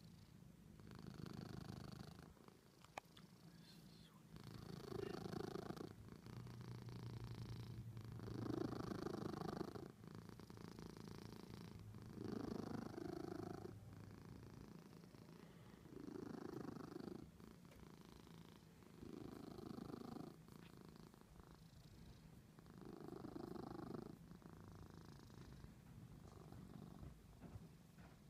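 Calico cat purring, the purr swelling and fading in a slow, even rhythm about every three to four seconds.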